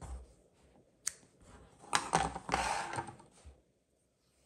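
Small craft scissors snipping a strand of yarn with one sharp click about a second in, followed by a second or so of light clicking and rustling as the scissors and yarn are handled.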